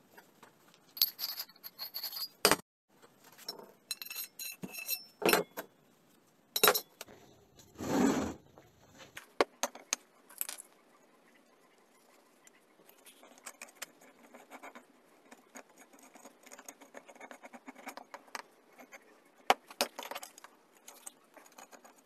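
Steel plate, short steel tubes and a metal square being set down and handled on a wooden workbench: a run of sharp metallic clanks and clinks through roughly the first half, then fainter scratching and small ticks as a paint marker is drawn on the steel tube against the square.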